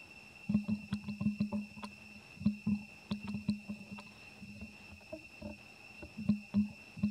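Steady high-pitched drone of forest insects, broken by irregular clusters of short, low knocks or thumps.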